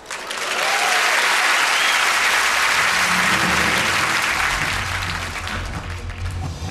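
Audience applauding, the applause swelling in quickly in the first second and fading away over the last couple of seconds, with music underneath.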